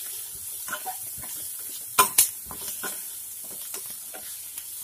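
Sliced onions frying in oil in a nonstick pan, sizzling steadily while a spatula stirs them with scattered scraping clicks, and two sharp knocks against the pan about two seconds in.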